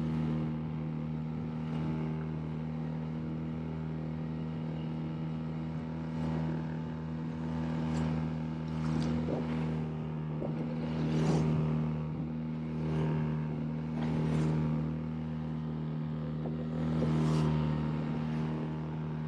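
Outboard motor on a small fibreglass boat running steadily under way, a constant drone, with hissing swells of spray and water washing past the hull every second or two.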